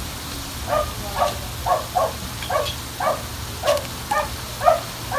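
A dog barking repeatedly, about two short barks a second.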